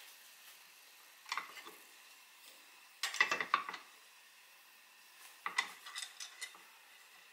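Stovetop waffle pan on a gas burner giving short clusters of light metallic clicks and clatter: a few about a second in, a louder burst around three seconds in, and more a little after five seconds.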